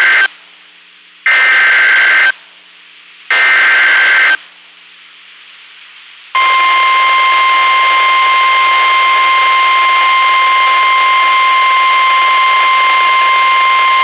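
Three short warbling data bursts of the Specific Area Message Encoding header, each about a second long, with pauses between them. About six seconds in, the steady single-pitched Weather Radio warning alarm tone starts and holds to the end, all over radio hiss. Together they mark the start of a new broadcast warning.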